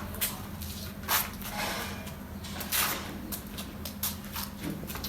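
A dry cloth wiping dust off a jeep's body in several brief rubbing strokes at irregular intervals, with a steady low hum underneath.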